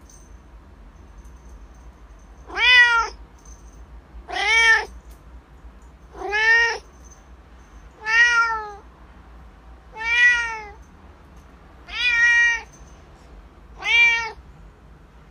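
A cat meowing seven times, about every two seconds; each meow is short and rises then falls in pitch.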